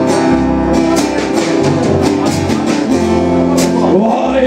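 Live band music: an acoustic guitar strummed in a steady rhythm over a plucked upright double bass.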